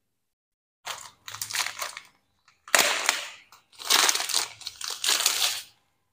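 Clear plastic packaging bag crinkling in three spells as a gold alloy heat guard is pulled out of it by hand.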